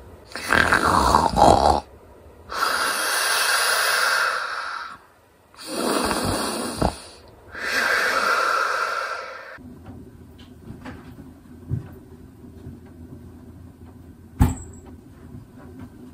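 Loud, exaggerated cartoon-style snoring: four long, noisy breaths in and out that stop about ten seconds in. A low hum with faint ticks follows, with one sharp knock near the end.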